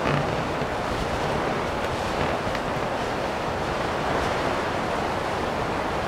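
Steady rushing wind of a snow blizzard, an even noise that holds at one level throughout.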